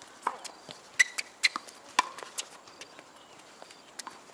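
Tennis rally on a hard court: a run of sharp knocks from racket strings striking the ball and the ball bouncing, loudest about one and two seconds in.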